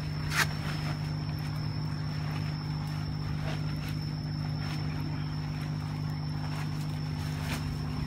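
Steady hum of an air pump aerating a tub of koi, with air bubbling into the water. A brief sharp noise about half a second in.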